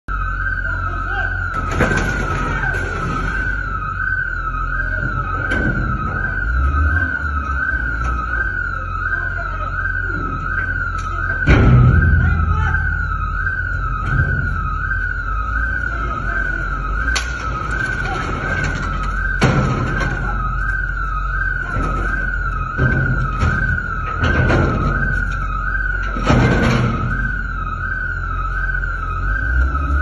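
Electronic alarm siren wailing steadily in a rising-and-falling warble, over a low engine rumble from the bulldozer, with about six heavy bangs every few seconds as the machine breaks out the ATM, the loudest about eleven seconds in.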